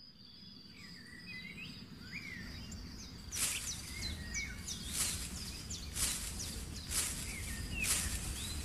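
Small birds chirping with short, quick calls over a faint steady low hum. From a few seconds in, soft swishes come about once a second.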